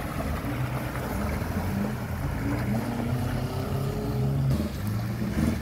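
A Pajero 4x4's engine running at low revs, its pitch rising and falling, while the vehicle wades through a shallow river with water washing around it.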